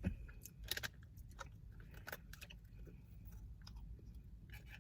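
Someone chewing a crisp waffle-cone snack, a series of faint irregular crunches, the loudest about a second in.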